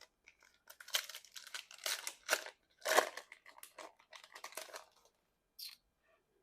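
Plastic wrapper of a trading-card pack crinkling and tearing as it is ripped open, a quick run of irregular crackles for about four seconds, with one last short crinkle near the end.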